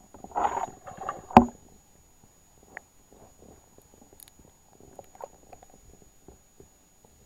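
Muffled splashing of a trout thrashing at the water's surface, heard from underwater through a camera's waterproof housing, ending in one sharp knock about a second and a half in. After that only faint, scattered ticks and knocks.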